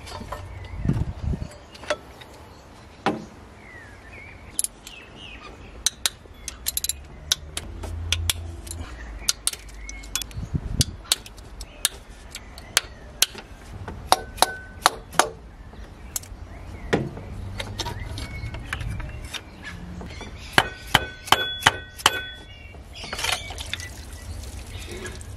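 Metal hand tools clinking and tapping against the timing-belt end of a Toyota 5VZ-FE V6 as bolts and parts are worked loose: many sharp irregular clicks, some ringing briefly, with a quick run of clicks about three quarters of the way in.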